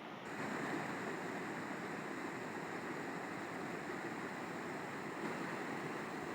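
River water flowing, a steady rushing noise that steps up in level just after the start.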